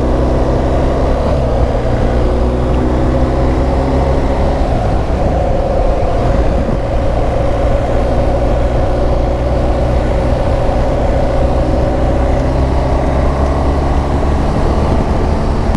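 BMW R1250 GSA's boxer twin engine running steadily at cruising speed on the road, with a constant droning note whose pitch drifts only slightly.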